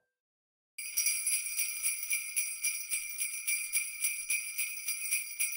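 Sleigh bells shaken in a steady rhythm, about five shakes a second, starting about a second in.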